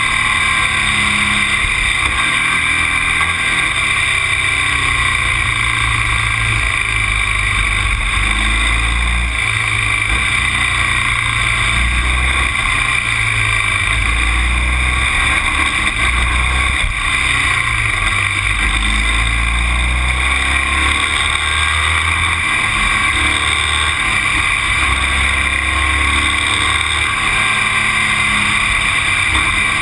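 Continuous loud noise of a vehicle travelling on a road, with a low rumble that swells and drops every few seconds.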